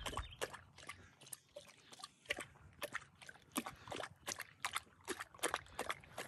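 A Weimaraner lapping water from a pond's edge: a quick, even series of wet laps, about three a second.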